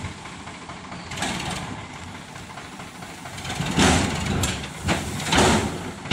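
Sonalika DI 750 tractor's diesel engine running steadily while its hydraulic tipping trolley is raised to dump a load of sand. There are louder rushing surges about a second in and twice more in the second half.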